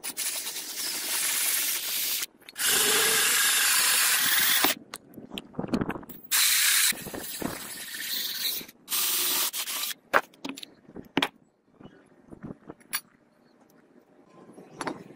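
Hole saw on a power drill cutting holes in a steel blank under a water spray: harsh hissing in several bursts that start and stop abruptly. Near the end, a few light clicks and clinks of metal.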